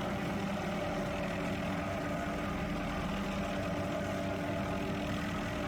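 Helicopter running steadily at a distance: a constant engine drone with a few steady tones through it.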